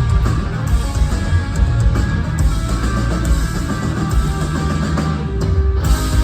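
Heavy rock band playing live: distorted electric guitar over bass and drums. About five and a half seconds in, the cymbals and upper sound drop out for half a second, leaving a held note, before the full band crashes back in.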